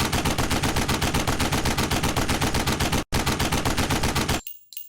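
Rapid automatic gunfire, about seven shots a second, in two long bursts with a brief break about three seconds in. It stops about four and a half seconds in, leaving faint light clinks.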